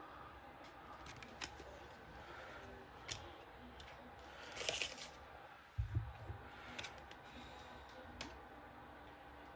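Faint handling of trading cards and a plastic cello pack: scattered light clicks and ticks, a short scrape about halfway through, and a soft low thump just before six seconds.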